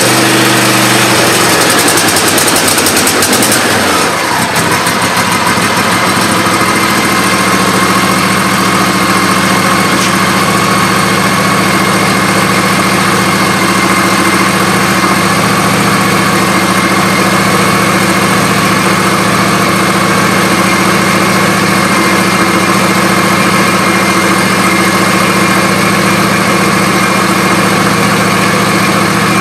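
John Deere D140 lawn tractor engine running just after being started. The sound shifts about four seconds in, then the engine idles steadily.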